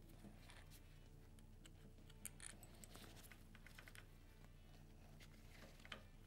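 Near silence: room tone with a few faint light clicks as a flywheel holding tool and a socket on an extension are fitted to the flywheel nut, about two seconds in and again near the end.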